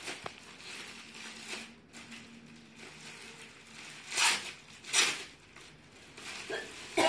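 Rustling and crinkling of dress fabric being handled and unfolded, with two louder swishes about four and five seconds in.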